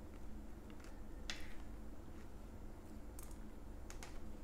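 A few faint, sharp clicks at irregular intervals, some in quick pairs, over a faint steady low hum.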